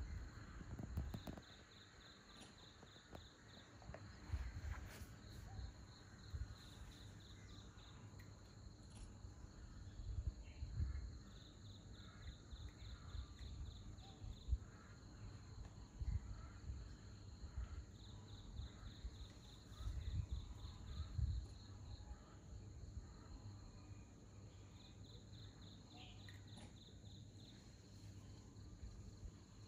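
Insect chirping in repeated pulsed trills, each spell lasting about two to three seconds and returning every several seconds, under irregular low rumbles on the microphone.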